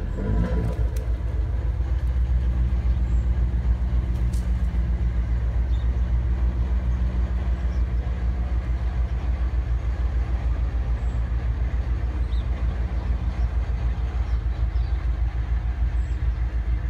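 A motor running steadily with a low drone and a fast, even pulse.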